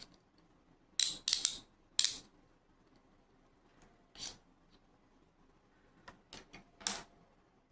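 Plastic U-shaped sliding cabinet lock clicking as its two halves are squeezed, pulled apart and slid together: sharp clicks at irregular intervals, several close together in the first two seconds, then a few more spaced out.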